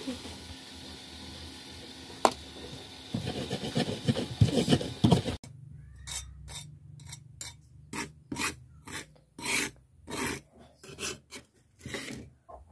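Stone pestle grinding a spice paste against a glazed clay mortar (cobek and ulekan), then a metal spatula scraping the paste off the pestle and the mortar's surface. The grinding is a rough rubbing. About halfway in it gives way to quick, even rasping strokes, roughly three a second.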